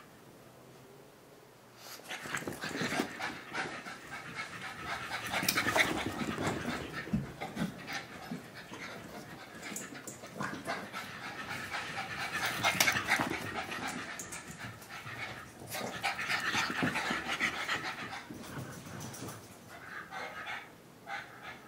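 French bulldog puppies panting as they run about and play, starting about two seconds in and coming in several louder spells.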